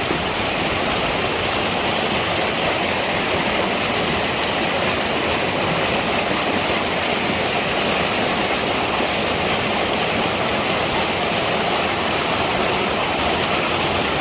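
Mountain valley stream rushing, a steady even roar of water.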